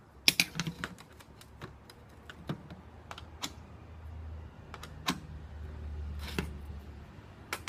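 Irregular light clicks and taps of hand marking tools (straightedge, tape measure, marker) handled on and against a sheet of metal, with several quick ticks in the first second. A low hum comes up in the second half.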